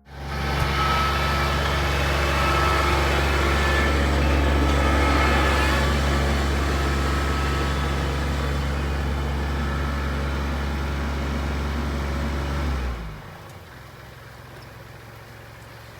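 Kubota L3301 tractor's three-cylinder diesel engine running steadily under load, then dropping to a much quieter, lower running level about three seconds before the end.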